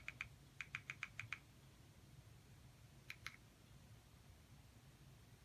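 Faint, rapid run of short, evenly spaced clicks, about eight a second, as a channel list is scrolled through on a streaming box. The run stops about a second and a half in, two single clicks follow about three seconds in, and a faint low hum lies underneath.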